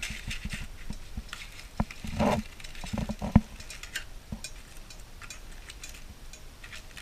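Aluminium foil crinkling and rustling as a foil-baked fish parcel is pulled open with tongs, with scattered light clicks of the tongs; the loudest is a sharp click a little over three seconds in.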